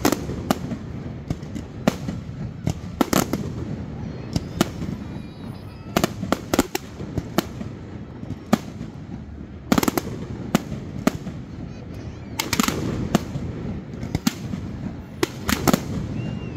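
Aerial fireworks shells bursting overhead: a string of sharp bangs at irregular intervals, several coming in quick runs.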